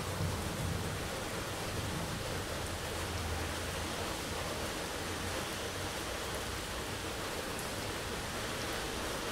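Heavy rain falling steadily as an even hiss, with a low rumble underneath for the first few seconds that then fades.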